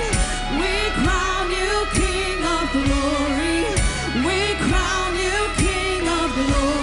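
Live worship music: a singer carries a slow melody with long, bending notes over a band with sustained low tones and a beat about once a second.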